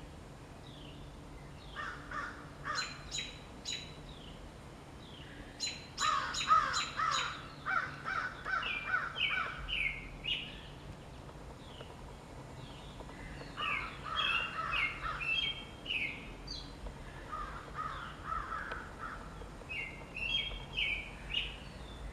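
Songbirds singing in bouts of rapid repeated chirping notes, with short pauses between phrases. A faint low hum sits underneath in the first half.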